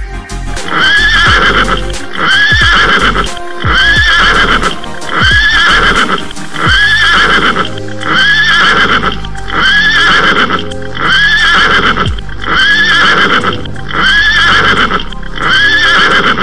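Horse whinny, a short rising-and-falling call repeated identically about every second and a half, like a looped sound clip, over background music with a low beat.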